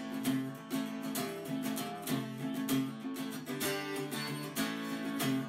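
Background music: a strummed guitar track with a steady rhythm.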